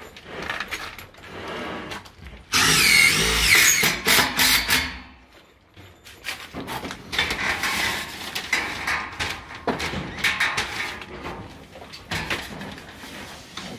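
Cordless drill driving a screw through a 50 mm AAC panel into the timber batten behind it. The drill runs loudly for about two and a half seconds a few seconds in, followed by quieter, intermittent drill and handling noise.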